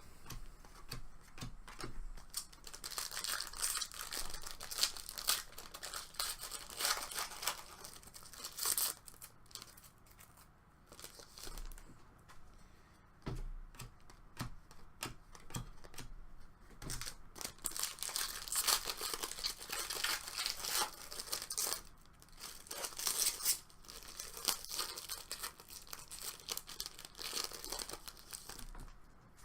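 Foil trading-card packs being torn open and their wrappers crinkling, in several stretches of scratchy tearing and rustling with short pauses between them.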